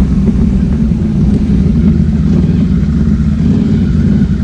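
Onboard ATV engine running steadily as the quad rolls along a dirt trail at an even pitch.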